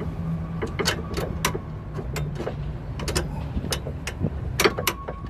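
Hand tools clinking and clicking against metal, irregular sharp knocks about one to three a second, over a steady low hum.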